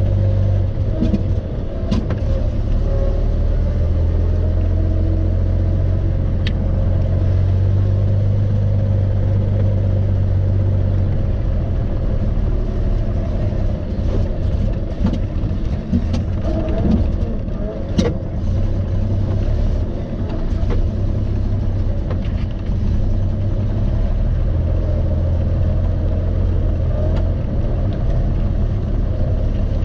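Engine of a 1930 Series 61 car running as it is driven, a steady low drone that swells and eases, with a few sharp clicks or knocks, the sharpest about eighteen seconds in.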